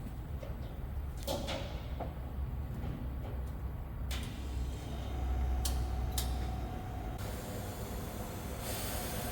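Workshop work sounds: a steady low hum with several sharp knocks and clanks, and a hiss that comes in about seven seconds in and grows louder near the end.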